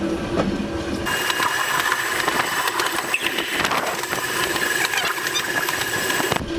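Volk's Electric Railway car running along its track: rapid clicking and rattling with a steady high whine. The sound changes abruptly about a second in and again just before the end.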